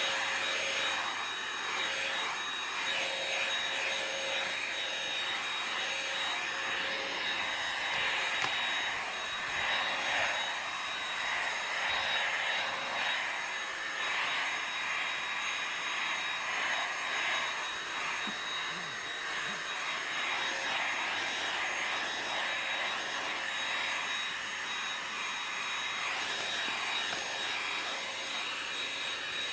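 White stick vacuum cleaner with a clear dust cup running steadily as its floor nozzle is pushed over foam floor mats, sucking up cat fur. A constant motor whine over a steady airy rush.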